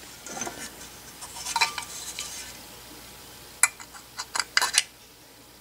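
Small brass model steam engine parts and hand tools being handled on a workbench: soft handling with light metal clinks, then a quick run of five or six sharp metallic clicks about three and a half seconds in, as the brass cylinder and its transfer punch are set against the brass port plate.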